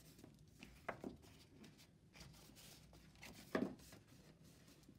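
A cardstock box being handled and turned over on a tabletop. A few faint soft knocks and rubs of card against hands and table, the loudest about three and a half seconds in.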